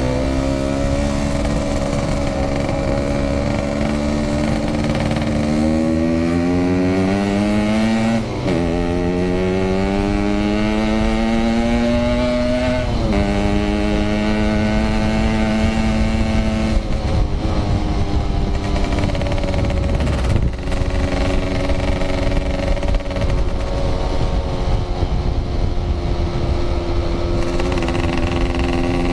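Yamaha RX-King 135cc two-stroke single-cylinder motorcycle engine under way. Its pitch climbs as it accelerates, drops sharply at gear changes about eight and thirteen seconds in, then holds fairly steady at cruising speed.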